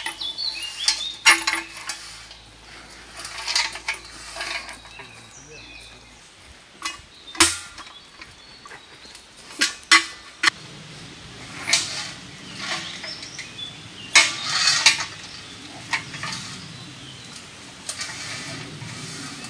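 Steel beer keg being knocked about and pushed by brown bears: irregular sharp metallic knocks and clatters with some scraping, a dozen or so strikes spread unevenly.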